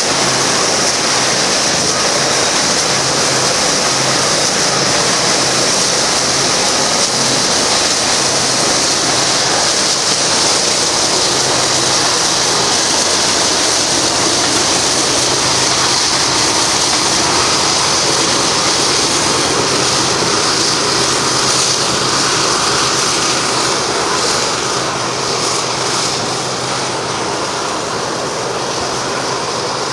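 BNSF intermodal freight train's cars rolling past close by: a steady rushing roar of steel wheels on rail, with a low steady hum underneath. The roar eases off slightly in the last few seconds.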